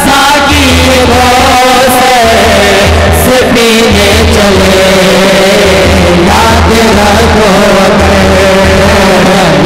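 Two male voices singing a Punjabi naat in long held notes through a loud PA system, with duff (frame drum) accompaniment.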